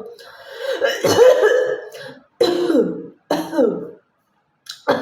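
A woman coughing and hawking her throat: first a long throat-clearing hawk of about two seconds, then two shorter coughs that fall in pitch.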